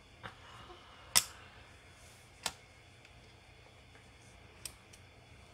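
Four small, sharp clicks of a repair tool against the internal parts of an opened Nintendo Switch. The loudest comes about a second in, another follows about a second later, and a faint one comes near the end.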